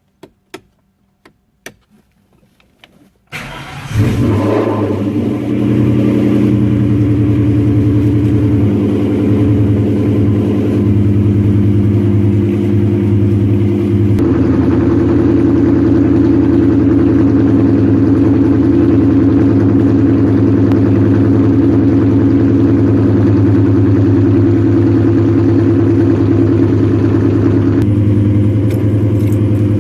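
A few light clicks, then a supercharged four-cylinder Mercedes C230 Kompressor engine cranks and catches about three to four seconds in, and runs steadily after that.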